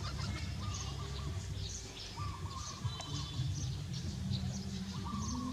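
Birds calling: a short, wavering call repeats three or four times a couple of seconds apart over many thin, high chirps, with a steady low rumble underneath.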